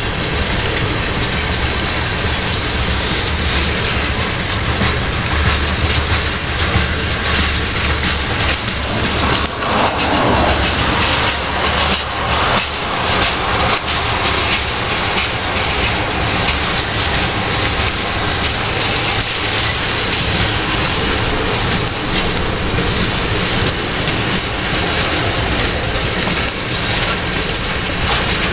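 Slow-moving freight train of tank cars and covered hopper cars rolling past, its wheels clicking steadily over the rail joints under a constant rumble.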